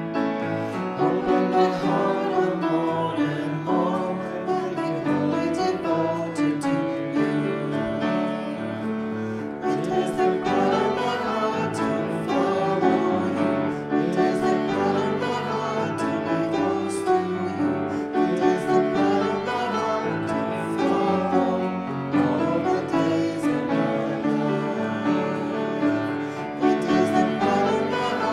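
Congregation singing a worship song with instrumental accompaniment.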